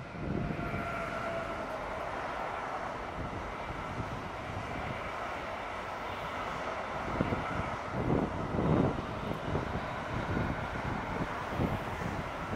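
An intermodal freight train rolls past close by behind an electric locomotive. A steady whine in the first couple of seconds fades as the locomotive goes by, then the wagons run past with a steady rumble and uneven wheel thumps from about seven seconds in.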